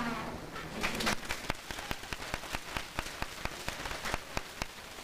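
Audience applauding: a scattered round of hand claps that starts about a second in and thins out near the end.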